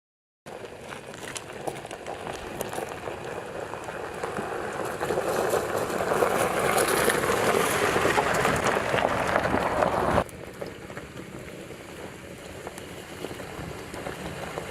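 Noise of a Ram 1500 Rebel pickup driving off road, mostly tyre and terrain noise with no clear engine note, growing louder and then dropping abruptly to a quieter hiss about ten seconds in.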